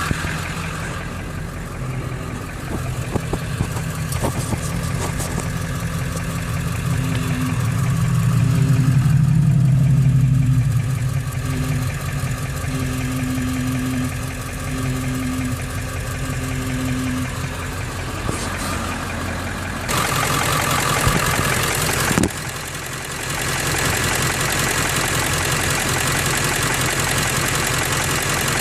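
A vehicle's 7.3-litre engine idling steadily. Partway through, a low tone comes and goes about once a second. Later a louder stretch of noise ends in a sharp click. These extra noises are the steering and brake noise being checked.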